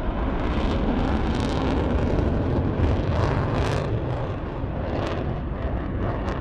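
Jet noise of a Sukhoi Su-57 twin-engine fighter in flight: a steady rushing rumble with irregular sharp crackles through it.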